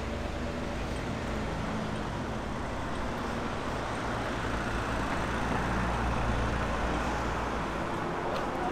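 Steady city road traffic: car engines and tyre noise, with a low engine rumble that fades out about seven seconds in.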